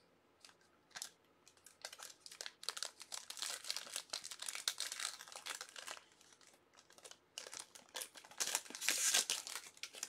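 Wrapper of a 2020 Topps Tier One baseball card pack being torn open and crinkled by hand: a long spell of crackling from about two seconds in, then a shorter, louder one near the end, with a few single crackles between.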